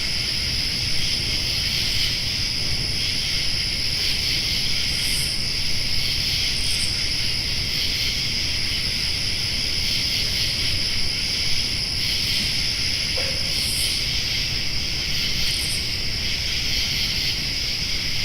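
Summer night insect chorus: a steady, unbroken high-pitched trilling drone, with a few short, higher chirps standing out about five, seven, fourteen and sixteen seconds in, over a low steady rumble.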